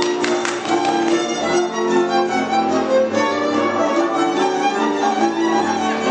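Live Transylvanian folk band playing Kalotaszeg dance music, a fiddle leading over string accompaniment. A few sharp slaps near the start come from the dancers.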